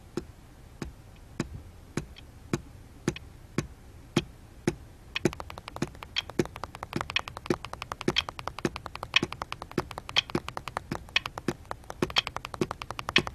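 Rhythmic tapping of a foot and a pencil in a classroom. It starts as a steady tap a little under twice a second, and about five seconds in a faster run of lighter taps joins it, about five a second.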